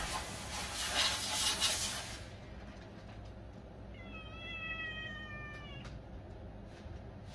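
A kitten meowing once, a single long, slightly falling call about four seconds in.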